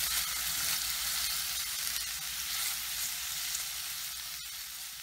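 Sliced onion and carrot rounds sizzling in olive oil in a frying pan, turned with a silicone spatula. The sizzle slowly fades, with a faint click near the end.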